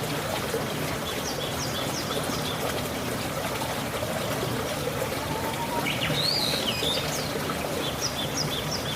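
Water trickling steadily, with small birds chirping now and then; a louder curving call comes about six seconds in.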